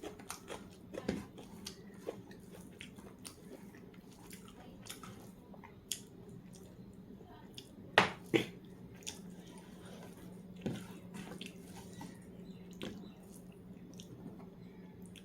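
Close-up sounds of a person eating: chewing and wet mouth clicks, with two louder sharp clicks about halfway through. A steady low hum sits underneath.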